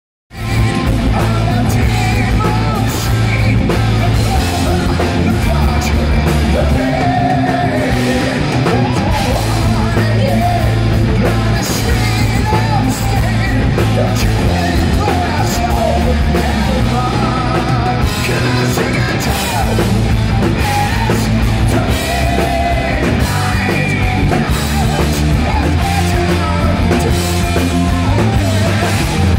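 A live rock band playing loud through a PA: a singer over electric guitars and drums, with steady low bass notes that change every couple of seconds.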